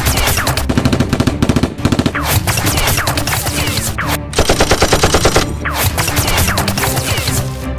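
Rapid bursts of automatic gunfire sound effects dubbed over Nerf blasters being fired, with an even, faster rattle lasting about a second just past the middle.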